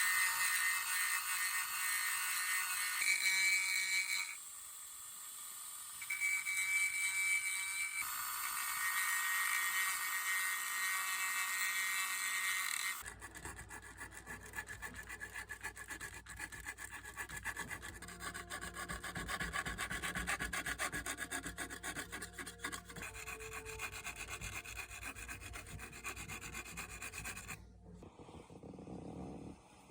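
Tools rubbing and grinding away at a resin model-car roof to thin it. A high-pitched grinding noise dips briefly about four seconds in, then runs on. About thirteen seconds in it changes to quick repeated rubbing strokes over a low hum.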